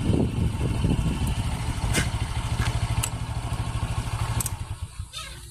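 A small engine running low and steady, fading away about five seconds in, with three sharp clicks over it.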